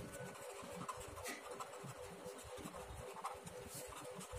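Faint scratching of a pen on paper: a string of quick, short strokes as words are written out by hand.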